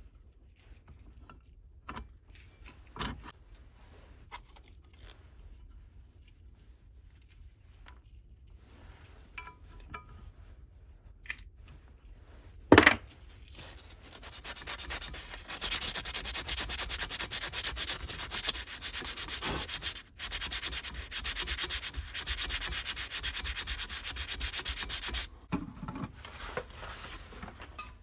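Leather splitter blade being sharpened: a steady abrasive rubbing lasts about ten seconds in the second half, with a brief break in the middle, and cuts off suddenly. Before it come scattered small clicks and one sharp knock, the loudest sound here.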